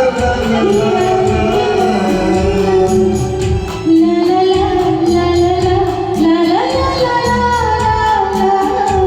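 Music from a Hindi film song: sustained melody notes, some gliding in pitch, over a steady beat of about three to four strokes a second.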